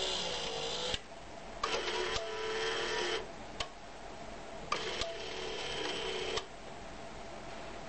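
Small geared electric motor whirring in three short runs of one to two seconds, with a sharp click between runs, as the motor reverses at each limit switch.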